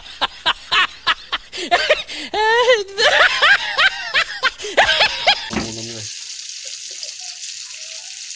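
Loud, hearty laughter in quick repeated pulses breaks off a little past halfway, leaving the steady sizzle of small fish frying in oil in a wok.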